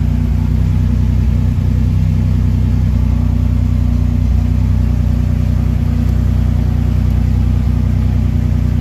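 Turbocharged Buick Grand National V6 with an aftermarket Terry Houston downpipe idling steadily, with an even low note that holds constant.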